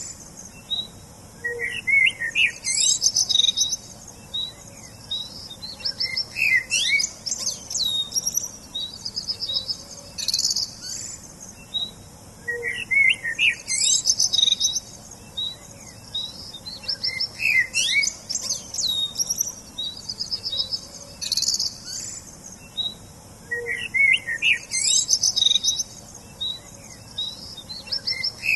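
Songbirds singing and chirping: bursts of high trills and quick sweeping whistles, with lower chirps in between, coming in phrases that repeat every few seconds.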